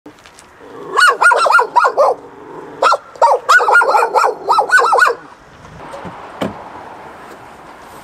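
Dogs barking in two quick volleys of short, high barks that rise and fall in pitch. A single thump follows about six and a half seconds in.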